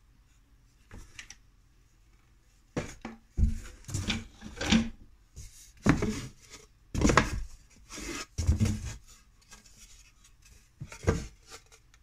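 Unfinished wooden beehive panels handled and pulled out of a cardboard box: a few seconds in, irregular wooden knocks, clunks and rubbing start and come in bursts, the boards bumping each other and scraping against the cardboard.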